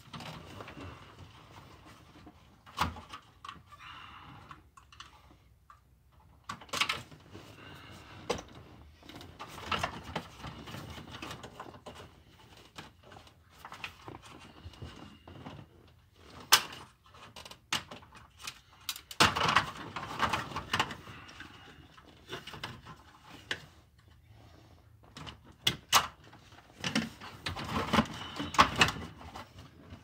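Plastic dash bezel and its wiring connectors on a 1999 Chevy Blazer being pried and wiggled loose by hand: irregular plastic clicks, scrapes and rattles, busiest around two-thirds of the way through and again near the end.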